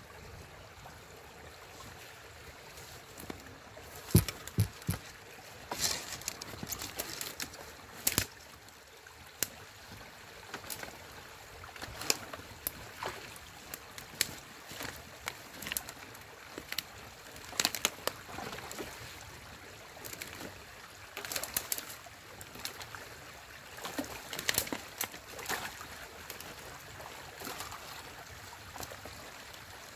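Stream water running and gurgling through a small beaver dam swollen by rain, with frequent sharp splashes and knocks, irregular and some much louder than others, from sticks and mud being raked out of the dam.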